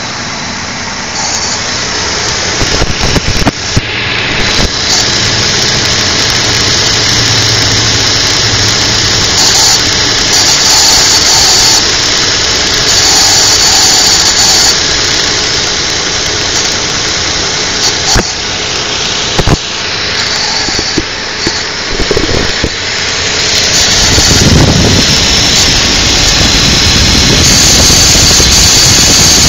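2002 Infiniti QX4's 3.5-litre V6 running shortly after a cold start. An unusual high-pitched squeal comes and goes several times over the loud, steady running noise. The owner has not identified its cause.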